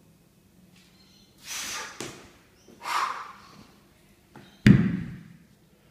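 Two heavy exhalations after the effort of squatting with a 40 kg kettlebell, then, about three-quarters of the way through, one loud thud as the kettlebell is set down on the floor.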